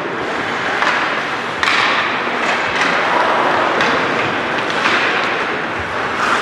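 Noise of a game in play: a steady din with repeated sharp knocks and thuds, like sticks and a puck or ball striking.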